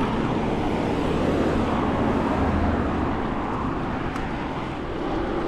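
Steady road traffic noise from motor vehicles on a busy road, a low rumble of engines and tyres that swells slightly about two to three seconds in.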